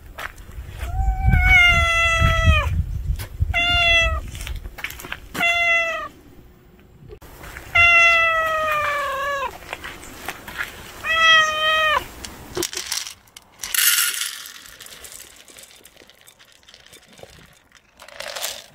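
A calico street cat meowing five times, long insistent meows that each slide down in pitch at the end. Afterwards come a short rattle and, near the end, dry kibble poured from a container into a bowl.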